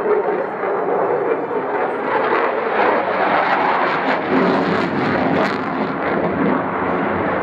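Eurofighter Typhoon fighter jet's twin EJ200 turbofans running in afterburner during a display pass: a loud, steady rushing jet noise with some crackle in the middle.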